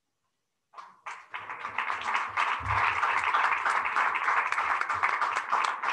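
A roomful of people applauding. It starts about a second in and builds within a second or so to steady clapping.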